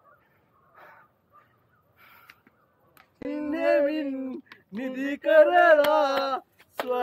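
A man's voice singing in a chant-like way, in long held notes, starting about three seconds in; before that only faint rustling.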